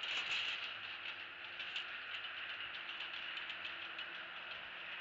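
Dry nest grass rustling and crackling in many short clicks as an adult bald eagle shifts its head and body in the nest cup over its newly hatched chick, over a steady hiss.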